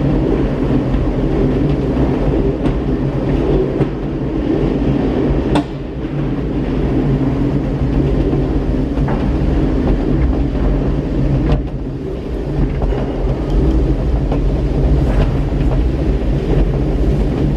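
Gateway Arch tram capsule climbing its track, heard from inside the small car: a steady mechanical rumble and hum, with an occasional sharp click or clunk.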